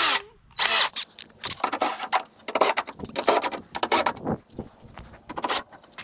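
Drill bit and small metal tools being handled, with irregular clinks and rattles.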